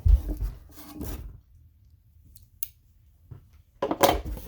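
A subscription box being opened by hand: scraping and rustling of the packaging in two bursts, with a quiet stretch and a few faint clicks between them.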